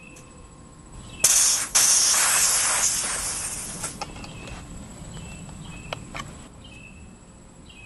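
Sudden loud hiss of high-pressure air vented through the fill hose's bleed valve, about a second in, fading away over some three seconds: the trapped pressure in the fill line is let off after filling the PCP rifle to 230 bar. A few light clicks follow as the Foster quick-disconnect fitting is worked off the fill port.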